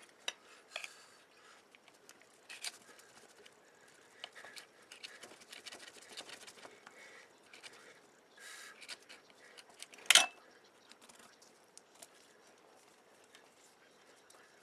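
Faint scraping, scratching and light clicks of a flexible putty knife working epoxy putty around soldered wires, with one sharper click about ten seconds in.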